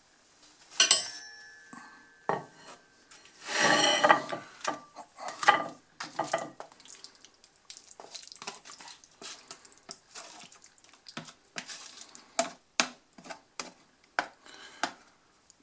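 A metal spoon scraping and knocking cheese-sauced macaroni out of a plastic microwave-meal tray onto a ceramic plate. There is a ringing clink about a second in, a longer scrape around four seconds, then a run of short spoon clicks and knocks.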